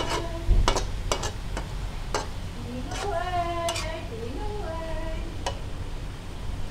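Squid and garlic chives stir-frying in a wok: steady sizzling, with sharp clacks and scrapes as the spatula strikes and tosses the food against the pan, about seven times at an uneven pace.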